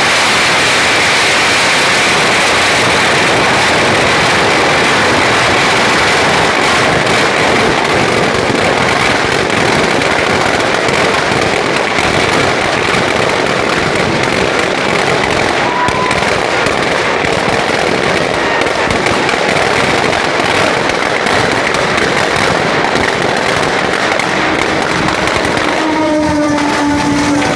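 Fireworks packed in a burning Dussehra effigy crackling and popping without a break, in a dense, loud barrage. Near the end, a steady pitched tone sounds over the crackle.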